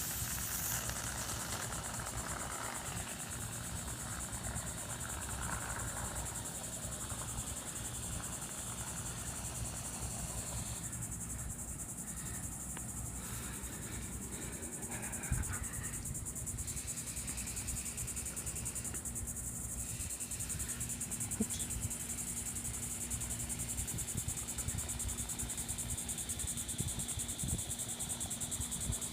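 Crickets chirring in a steady, high-pitched trill that goes on without a break.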